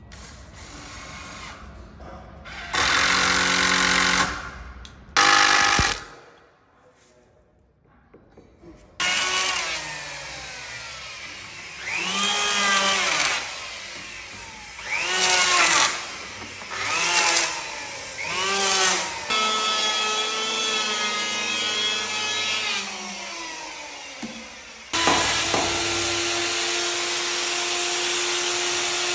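Power tools working a teak door. First a drill drives screws in two short bursts. Then an electric hand planer makes several passes along the door edge, its pitch rising and falling with each pass. Near the end a plunge router starts up and runs steadily, cutting a hinge recess.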